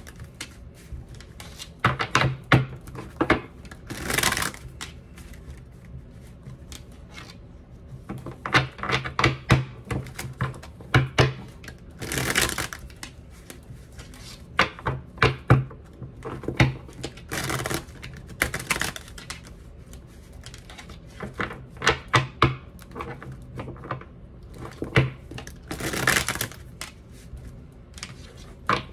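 Hands shuffling a deck of cards: runs of light clicks and taps, with a longer swish of riffling cards every few seconds.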